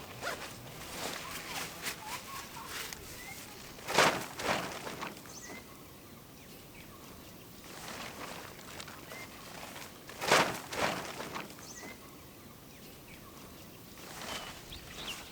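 Footsteps rustling through vegetation, with two louder bouts about four and ten seconds in, and faint short bird chirps repeating in the background.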